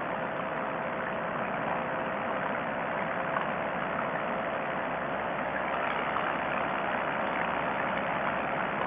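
Two-stroke paramotor engine and propeller running at steady cruise power in flight, with an even drone and no change in pitch.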